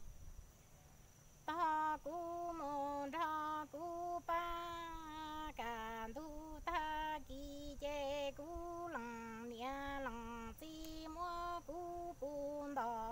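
A woman singing Hmong kwv txhiaj, the traditional chanted sung poetry, unaccompanied. She begins about a second and a half in, with long held notes that bend and waver, broken by short breaths.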